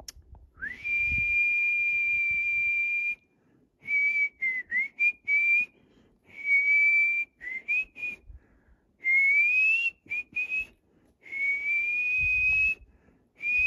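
A person whistling to call a deer: one long steady note, then several phrases of short notes with quick upward slides, all at about the same high pitch.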